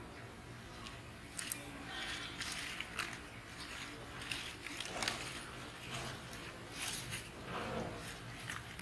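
Handling noise: scattered sharp clicks and snaps, a few seconds apart, with soft rustling between.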